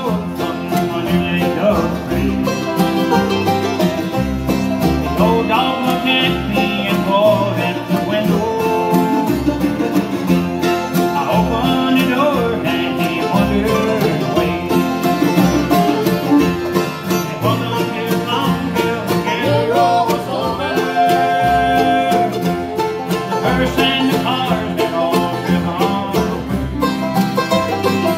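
Live bluegrass band playing: banjo picking over strummed acoustic guitars, with an upright bass keeping a steady beat.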